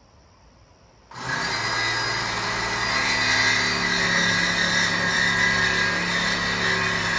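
Reciprocating saw (Sawzall) with a 12-inch blade cutting through a 3-inch exhaust pipe. It starts suddenly about a second in, and the motor runs steadily under a rasping cut.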